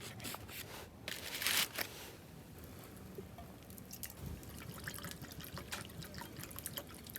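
Liquid dripping and trickling, with scattered light clicks and a short louder splash-like burst about a second and a half in.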